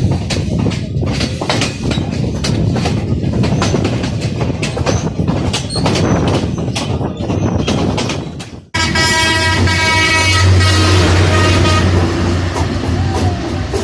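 Passenger train running, rumbling and rattling with sharp clicks from the rails. After a sudden cut about nine seconds in, a long, loud train horn blast.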